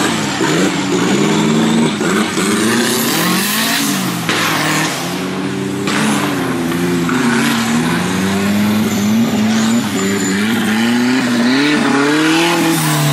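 Off-road competition buggy's engine revving hard under load, its pitch rising and falling repeatedly as the throttle is worked in deep mud.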